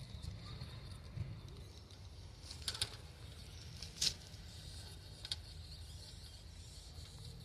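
Steady low outdoor rumble with a few sharp clicks and taps: a cluster about three seconds in, the loudest single one near four seconds and another near five, from a scale RC rock crawler's tyres and chassis knocking against rock as it climbs.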